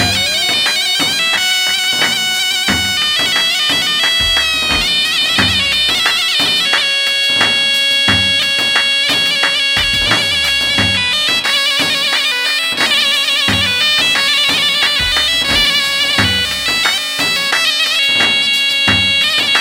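Arabic wedding dance music: a reedy, ornamented pipe melody with held, wavering notes over a steady drum beat.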